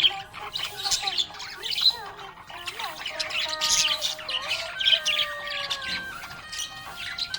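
Budgerigar chirping and squawking in quick, busy bursts, with a run of held whistled notes stepping up and down in pitch in the second half.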